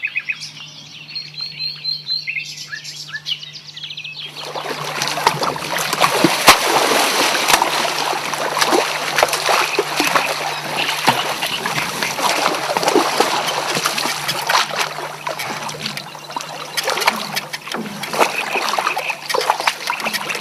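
A few short high chirps, then about four seconds in, close water splashing and sloshing starts suddenly and carries on densely, full of sharp slaps and drips.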